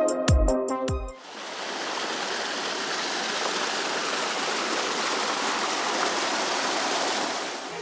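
Electronic dance music with deep bass drops cuts off about a second in, giving way to the steady rush of a small waterfall pouring over rocks into a mountain creek.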